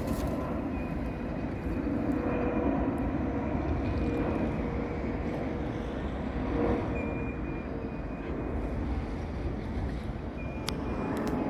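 Jet airliner on approach with its landing gear down, its engines giving a steady rumble with a thin whine running through it.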